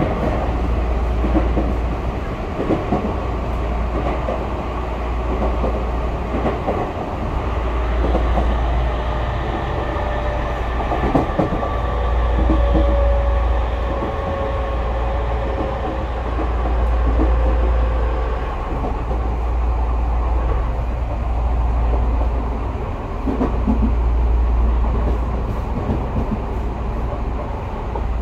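Tokyu 5000 series electric train heard from inside the car, running slowly: a steady low rumble that swells and eases, with scattered knocks of the wheels over rail joints and a faint whine in the middle.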